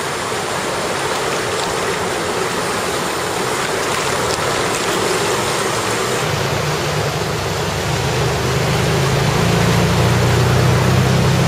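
Floodwater rushing and splashing through a street as a steady wash of noise. About halfway through, a low vehicle engine rumble comes in and grows louder toward the end.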